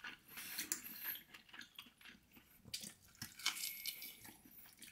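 Faint eating sounds from a man eating barbecue ribs: soft chewing with scattered small clicks and rustles.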